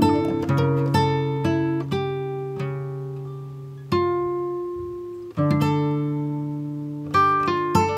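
Background music: plucked acoustic guitar notes, each struck and left to ring and fade.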